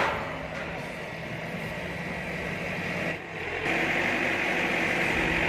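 Backhoe loader's diesel engine running steadily, with a hissing noise over it. The sound dips briefly about three seconds in, then carries on a little louder.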